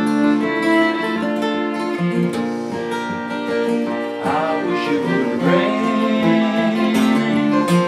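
Two acoustic guitars strumming and a fiddle playing a melody together in an instrumental break of a country-style song.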